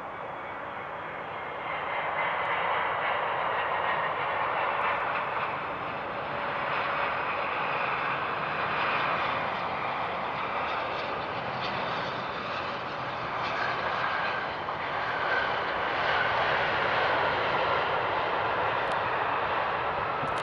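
Jet engines of a Boeing 747-400F freighter running as it lands, a steady engine noise that grows louder about two seconds in and stays loud.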